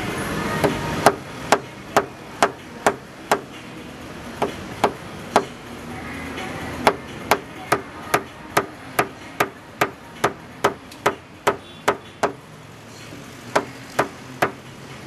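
Light, sharp hammer taps on metal, about two or three a second, in short runs with brief pauses. This is the sound of paintless dent repair: tapping down high spots in a car body panel with a small hammer and knockdown tool.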